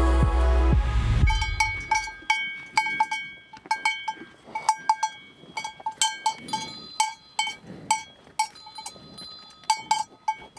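Background music ends about a second in, giving way to cowbells on grazing cattle clanking irregularly, several bells of different pitch ringing at once and in turn.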